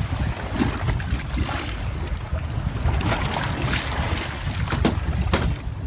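Wind rumbling on the microphone on a boat at sea, with water washing along the hull. A few short sharp sounds come in the second half.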